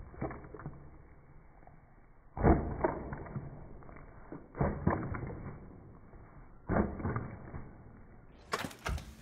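A Great Dane chewing and smacking on spaghetti, slowed down so the mouth sounds come out deep and drawn out, in three clusters of wet smacks and clicks. Near the end comes a short, sharper burst of sound.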